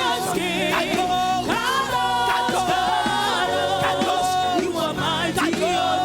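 Live gospel praise-and-worship music: singing with a wavering vibrato over a band's sustained keyboard tones and regular drum hits.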